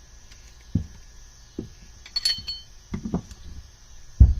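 Hand tools working on a carburetor rack: a screwdriver holds the adjusting screw while its lock nut is tightened. Several dull knocks and bumps are heard, with a short ringing metallic clink about two seconds in and the loudest knock near the end.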